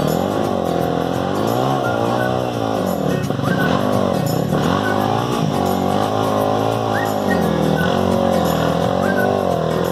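Dirt bike engine revving hard and easing off again and again in quick waves as the bike climbs a steep, muddy, rutted slope.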